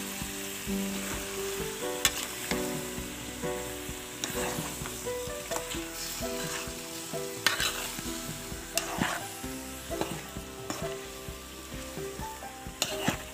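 Chunks of bottle gourd sizzling in oil and spice paste in a pan while being stirred, with a metal spatula scraping and clinking against the pan at irregular moments. A soft tune plays underneath.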